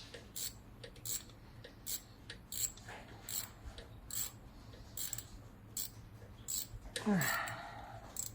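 Socket ratchet clicking in regular strokes, about one every three-quarters of a second, as it loosens a screw-type hose clamp. A louder, longer sound comes about seven seconds in.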